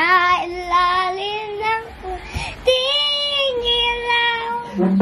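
A child's voice singing two long, drawn-out notes, the first in roughly the first two seconds and the second from just past halfway until near the end, each held with a slight waver.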